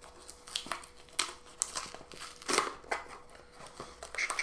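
Cardboard blind-box packaging for a Funko Mystery Mini being handled and opened by hand: a run of short, irregular crinkles and rustles.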